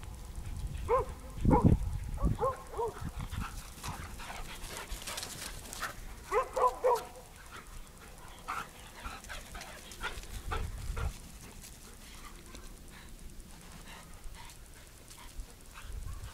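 A dog making several short, high yips during play, with bending pitch, a few in the first three seconds and another cluster about six and a half seconds in. A few low thumps come in between.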